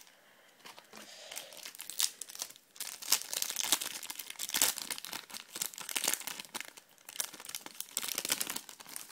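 Foil Topps Match Attax trading-card booster pack crinkling and tearing as it is ripped open by hand, starting about a second in, with the cards then pulled out of the rustling wrapper.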